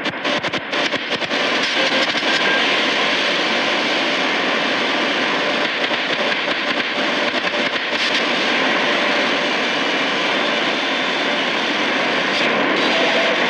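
Shortwave static from a Tecsun PL-880 radio's speaker as it is tuned up through the 7 MHz band. It is choppy for the first second or so, then settles into a steady hiss with no station coming through.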